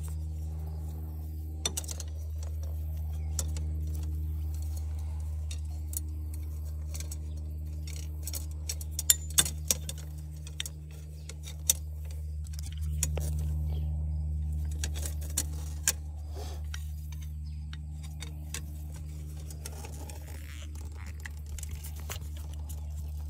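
Scattered metallic clicks and light clatter from a lever-type tubing bender working a length of quarter-inch steel fuel line, over a steady low hum.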